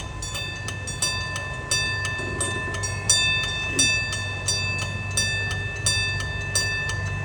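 Zoo train rolling by, with a low steady rumble and a bright ringing clang repeating about twice a second.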